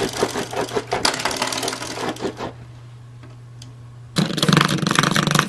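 Spring door stopper rattling and twanging in rapid clicks as a puppy bites and paws at it, for about two and a half seconds. After a quieter pause a louder, buzzing rattle starts about four seconds in.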